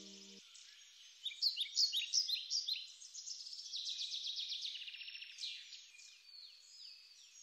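Birds chirping and singing in rapid repeated phrases of short falling whistles, over a faint outdoor background. Soft sustained background music cuts off just after the start.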